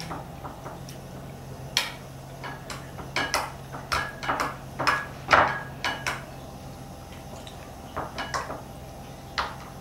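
A metal spoon stirs shrimp paste into water in a small ceramic bowl, clinking and scraping against the bowl in irregular taps, some with a short ring. The clinks are thickest in the first half and come again in a few taps near the end.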